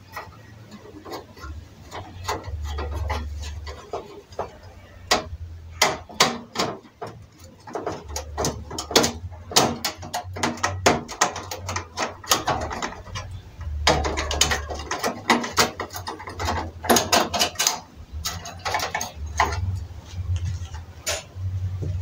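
Screwdriver turning screws in a gas stove's sheet-metal frame: a run of irregular metal clicks and scrapes, denser in some stretches. A low rumble comes and goes beneath them.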